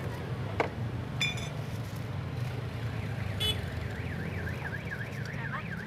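An electronic alarm warbling rapidly up and down in pitch, about three sweeps a second, starting a little past the halfway point, over a steady low hum.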